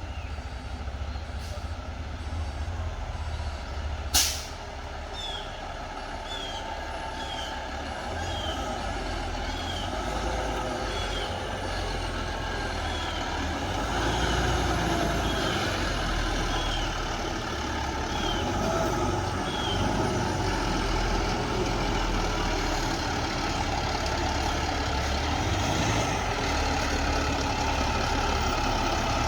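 Diesel dump truck running, its engine growing louder partway through, with a sharp air-brake burst about four seconds in.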